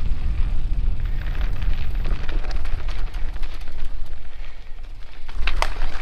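Wind buffeting the camera's microphone while riding a dirt trail: a steady heavy rumble. Sharp crackles of the trail surface or brush come through about five and a half seconds in.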